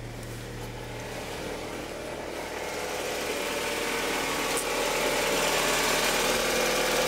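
First-generation Toyota RAV4's four-cylinder engine idling, growing louder as the open engine bay comes near. It carries some whirring from what the owner calls noisy belts.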